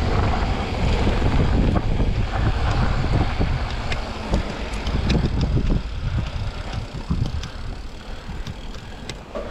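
Wind rushing over the microphone and knobby tyres rolling on a packed dirt and gravel road as a mountain bike descends, with scattered clicks and rattles from the bike. The rush eases over the last few seconds.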